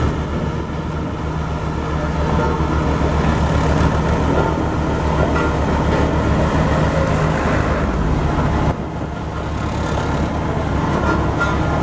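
Heavy road roller's diesel engine running with a steady, rhythmically pulsing low rumble. The sound drops suddenly for a moment about nine seconds in, then picks up again.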